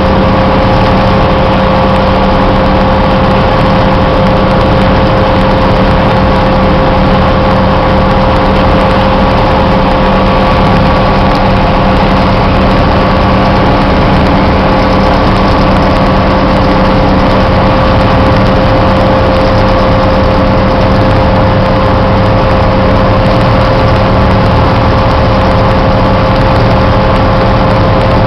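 Tugboat's diesel engine running steadily: a loud, constant drone with a steady whine on top and no change in pace.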